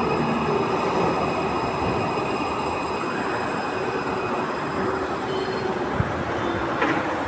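Santiago Metro AS-02 train running, heard from inside the car: a steady rumble of wheels on rail with faint steady whining tones, and a couple of short clicks near the end.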